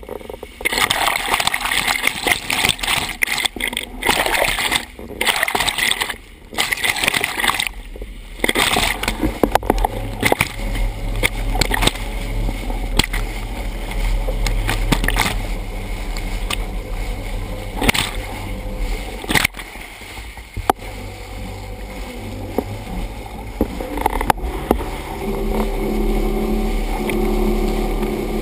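Water rushing and splashing against a camera mounted at the waterline of a moving motorboat, broken by several brief sudden drops during the first eight seconds. From about ten seconds in, the boat's engine hums steadily beneath the rush, and a higher engine tone joins near the end.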